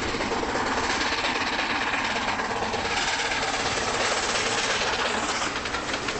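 Steam locomotive running, a dense steady rush of sound with fast, even beats.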